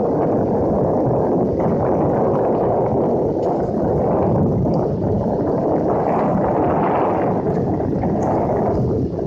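Steady rushing noise of a boat underway, with water and wind noise.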